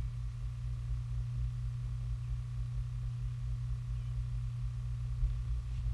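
Steady low hum, one unchanging tone with a faint higher whine over it, above a fluttering low rumble.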